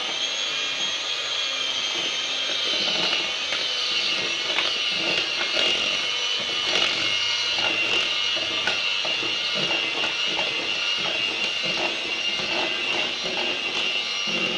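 Electric mixer beating thick crepe batter of eggs, sugar and flour: the motor whine rises as it starts, then runs steadily, with irregular clicks throughout.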